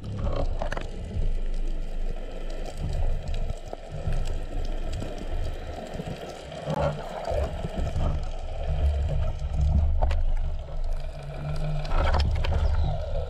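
Muffled underwater water noise and low rumble picked up through a camera housing on a speargun while the diver hauls in the line. There are a few sharp knocks.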